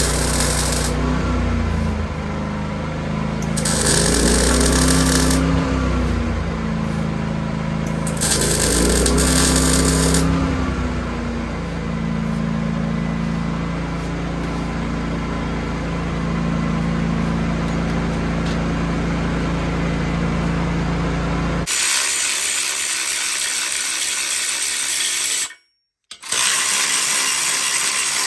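Power tool working on metal: a steady humming machine with three louder surges in the first ten seconds, then, after an abrupt change, a steady hissing noise.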